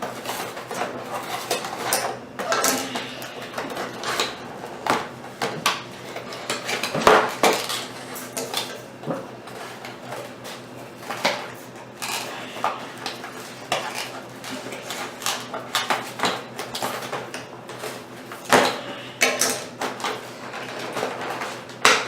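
Plastic toy packaging crackling and rattling with irregular clicks and knocks, as scissors cut through it and a doll is worked loose from its box.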